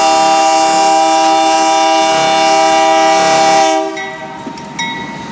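BNSF diesel locomotive's multi-chime air horn sounding a long, loud chord that cuts off about four seconds in, followed about a second later by a short toot.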